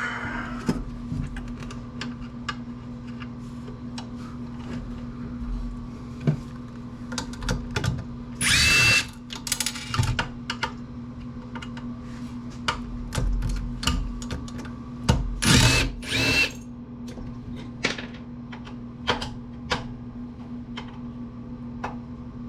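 Power drill-driver backing out the screws that hold the amplifier's transformer, in three short whining runs: one about a second long near the middle, then two brief ones a few seconds later. Between them, small clicks and taps of screws and metal parts being handled.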